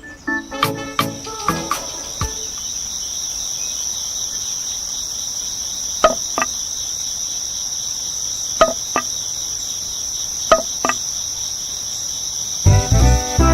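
Crickets chirring steadily at a high pitch. Three pairs of sharp taps come through in the middle, and music is heard briefly at the start and again near the end.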